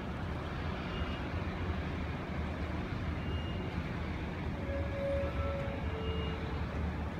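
Steady low rumble of harbour background noise, with a few faint short tones near the middle.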